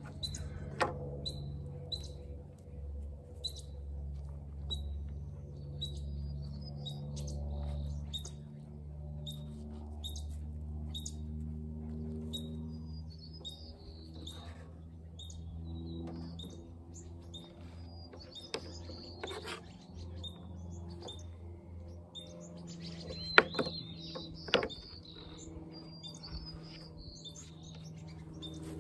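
A small bird calling outdoors: one short, high chirp repeated steadily, slightly faster than once a second, over a low steady hum. Near the end come two sharp knocks.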